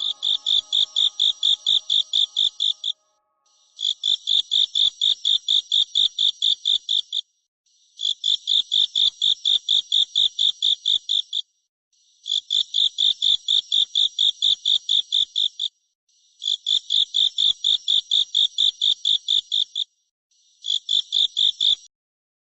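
A singing insect, grasshopper-type, stridulating high-pitched in repeated bursts of fast pulsed chirps, about four or five pulses a second. Each burst lasts about three seconds, with short pauses between bursts.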